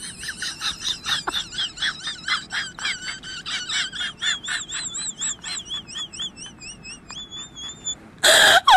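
A strip of green plastic twine held taut between the hands and blown like a grass-blade whistle, giving a high, warbling chirp that pulses about three or four times a second, wavering up and down in pitch, and settles into a held tone near the end. A sudden loud burst of noise breaks in at the very end.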